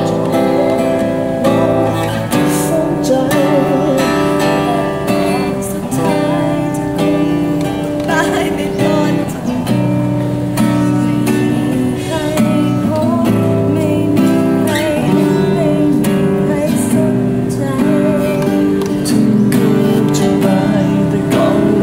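Acoustic guitar strummed steadily, with a voice singing a slow song over it.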